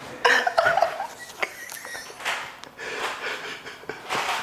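A woman's breathy laughter and heavy breathing, her emotional reaction just after a chiropractic neck adjustment, with two short sharp clicks about a second and a half in.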